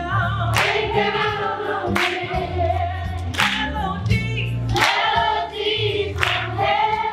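Large stage chorus of children and adults singing together over musical accompaniment, with accented beats about every second and a half.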